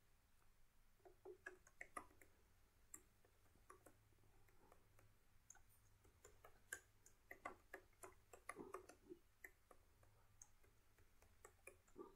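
Faint, irregular clicking of computer keyboard keys being typed, with a quicker run of keystrokes about seven to nine seconds in.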